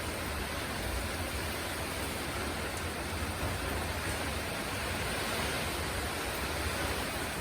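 Heavy rain and strong wind in a tropical cyclone: a steady, dense hiss with a low rumble underneath.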